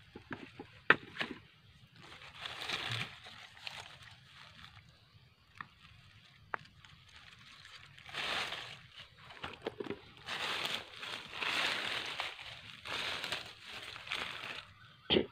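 Footsteps crunching and rustling through dry leaf litter on a forest floor, coming in irregular stretches, with a few sharp twig snaps in the first second or so.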